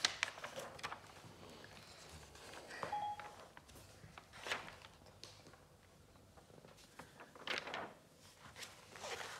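Paper handling: a Panini sticker and the glossy pages of the sticker album rustling and crinkling quietly in a few short spells.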